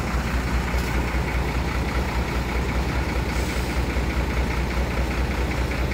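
Diesel engine of a large intercity bus idling steadily, a low even hum, with the bus just back in running order after repair.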